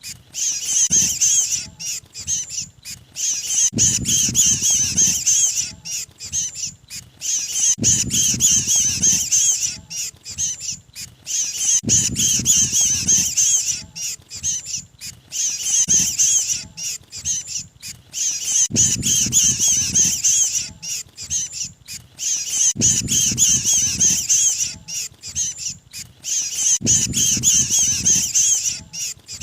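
Bird-lure recording of mantenan distress calls, the sound of a trapped ('kejepit') bird: harsh, high-pitched chattering calls, looped so that the pattern repeats about every four seconds, with a low rumble coming in on each repeat.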